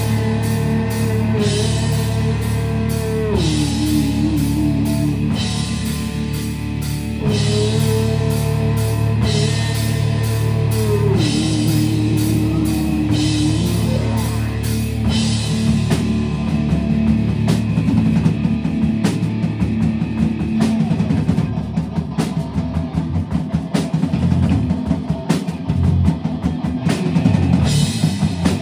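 Live rock band playing a song: drum kit, electric guitars and bass guitar. For the first fifteen seconds or so a held, bending melody line rides over the band, then the drumming grows busier.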